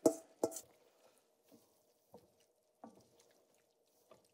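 A metal spoon clinks against a stainless steel bowl as seared ground pork is scraped out into a pan, two sharp clinks at the start. A few faint knocks follow, spaced about a second apart, as the pork goes into the sauce in the enameled cast-iron braiser.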